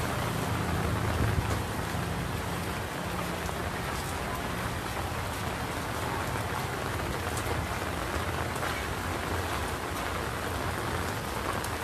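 Steady rain falling on a paved alley, an even hiss with scattered ticks of individual drops.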